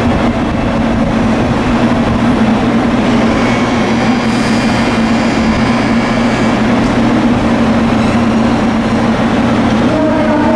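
JR Kyushu 783 series electric train standing at the platform, giving a loud, steady hum and drone. A few higher tones join in near the end.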